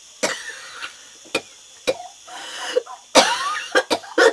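A woman coughing several times in short, harsh bursts, with a breathy gasp between the coughs.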